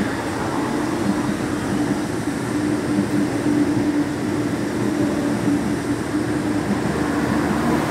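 Steady mechanical rumble with a continuous low hum, holding level throughout.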